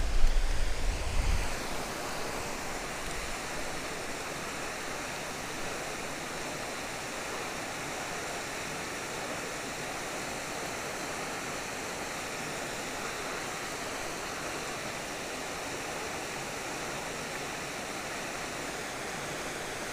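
Steady rush of water spilling over a low weir into a creek pool. A brief low rumble on the microphone in the first second and a half is the loudest part.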